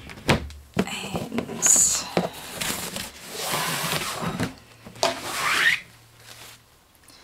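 A ribbon being untied and pulled off a large cardboard box, sliding and rubbing against the cardboard as the box is handled, with a short rising scrape about five seconds in.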